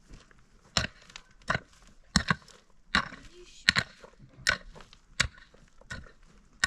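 A series of sharp, heavy knocks at an even pace, about one every three-quarters of a second, with a close double strike a little past two seconds in.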